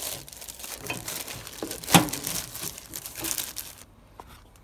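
Clear plastic packaging bag crinkling as it is handled and pulled off a metal spring compressor frame, with one sharp knock about two seconds in; the crinkling stops near the end.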